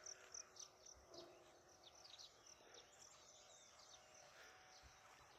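Near silence: faint outdoor ambience with soft, high chirps from insects and birds, a few a second.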